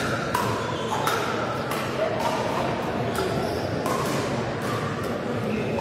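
Pickleball paddles striking the hollow plastic ball during rallies, a string of sharp pops at irregular intervals about every half second, echoing in a large sports hall over a steady murmur of voices.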